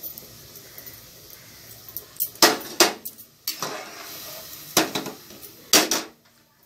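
A utensil knocking against the inside and rim of an aluminium pressure cooker while stirring, with about six sharp clanks, some in quick pairs, between about two and six seconds in.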